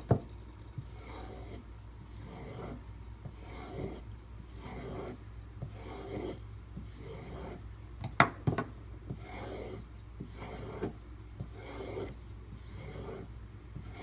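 A knife blade stroked over and over across a leather strop loaded with white compound: a steady series of soft dry rubbing passes, with a couple of sharp knocks about eight seconds in.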